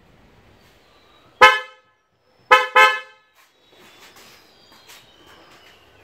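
Suzuki S-Presso's newly installed horn honked three times: one short toot, then two more in quick succession about a second later.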